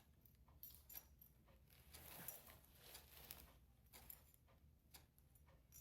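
Near silence: faint room tone with a few scattered light clicks and rustles.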